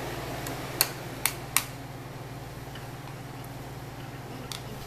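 A few sharp clicks of hard plastic being tapped or knocked, three in quick succession about a second in and a fainter one near the end, over a steady low hum.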